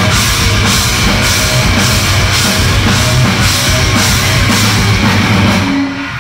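Live rock band playing loud on electric guitars, bass guitar and drum kit, with a steady cymbal beat. The band stops suddenly near the end as the song finishes.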